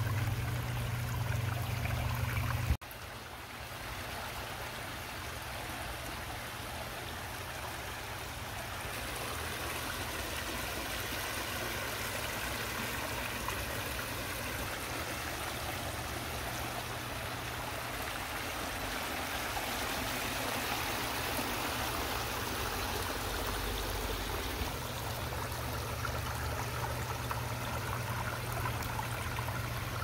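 Pondless waterfall's water running and splashing steadily down a rocky stream bed, with a low rumble at the start and again near the end, and an abrupt break about three seconds in.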